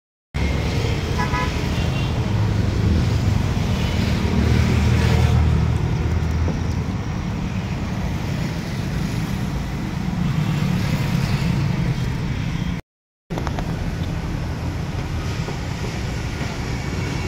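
Steady rumble of street traffic, with a short vehicle horn toot about a second in. The sound drops out for a moment about three-quarters of the way through.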